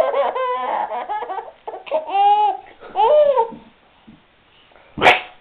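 Baby laughing and babbling in three bursts with pauses between, then a sudden sneeze near the end.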